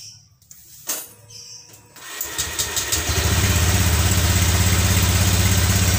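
Automatic scooter's engine starting about two seconds in and settling into a steady, evenly pulsing idle through its stock, unmodified exhaust muffler.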